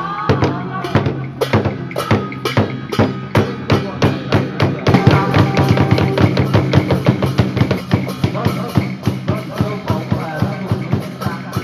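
Traditional Vietnamese music for water puppetry, led by steady, rapid drumming with other percussion over low held tones; the beating grows denser and louder about halfway through.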